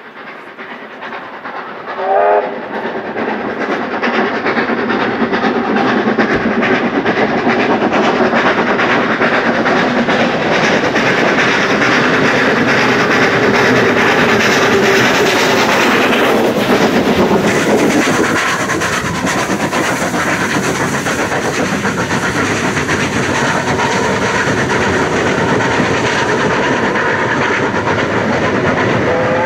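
Former NSW Government Railways 4-6-0 steam locomotive hauling a passenger train past at close range. The noise builds over the first few seconds as it approaches, then holds steady as the carriages roll by. A short whistle blast sounds about two seconds in.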